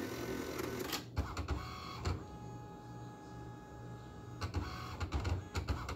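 ALPS MD-1500 thermal-transfer ribbon printer running through its power-on start-up cycle. A run of mechanical clicks and knocks is followed by a steady motor whine for about two seconds in the middle, then more clicking near the end. The owner isn't sure it sounds normal.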